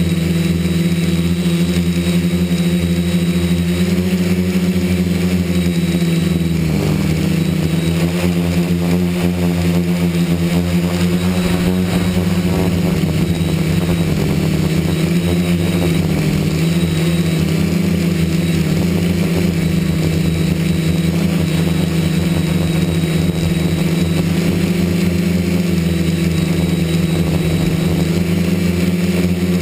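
Multirotor drone's electric motors and propellers running in flight: a steady hum whose pitch wavers slightly, heard close up from a camera mounted on the drone's frame.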